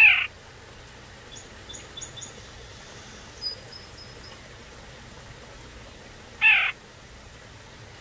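Young white-breasted nuthatch giving two short, loud, nasal calls, each dropping in pitch, about six and a half seconds apart. Faint high chirps sound in the background between them.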